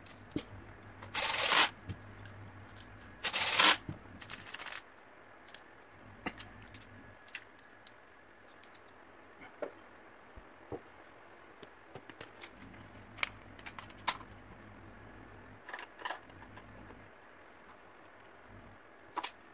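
Handling noises: two loud scraping rustles, about one and three seconds in, then scattered light clicks and clinks of small hard objects being moved.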